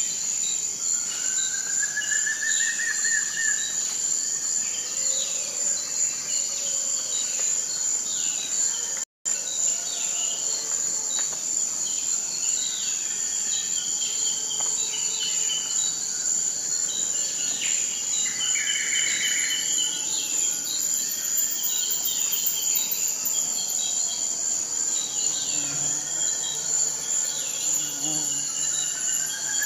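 Forest ambience: a steady, high-pitched insect trill with many short bird chirps over it, and a rising whistled bird call near the start and again near the end. The sound cuts out completely for a moment about nine seconds in.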